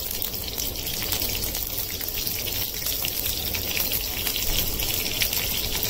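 Sliced onions sizzling in hot oil in a small pan, with a dense, steady crackle of spattering pops.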